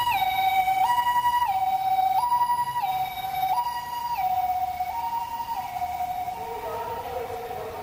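Ambulance siren sounding its two-tone hi-lo call, alternating steadily between a higher and a lower note and growing fainter in the second half as it moves away. A lower wavering tone comes in near the end.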